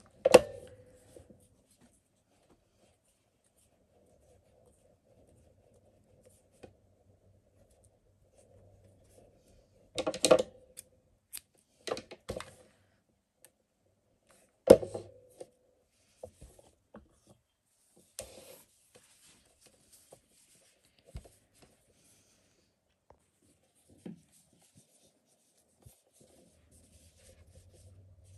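Crafting handling noise: a hot glue gun and a yarn-wrapped wire stem being worked by hand on a wooden table, with a handful of sharp knocks and clicks several seconds apart and light rubbing of yarn between them.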